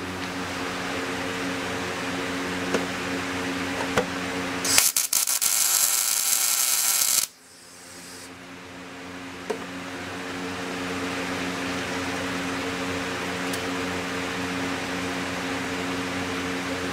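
A wire-feed welder's arc crackles and hisses for about two and a half seconds, starting about five seconds in and cutting off sharply, over a steady low hum.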